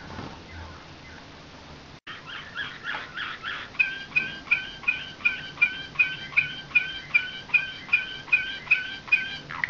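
Slavujar (nightingale-song) canary singing: starting about two seconds in, a run of whistled notes that settles into a long, even series of the same two-part whistled note repeated about three times a second.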